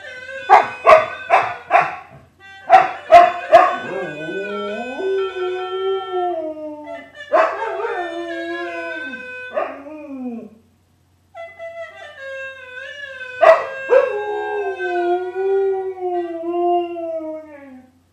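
Siberian husky howling: two quick runs of short yips, then three long howls that waver and slide down in pitch.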